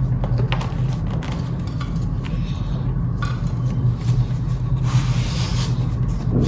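Scooter battery pack being worked out of the deck by its belt: scattered knocks and clicks, then a longer scraping slide about five seconds in, over a steady low hum.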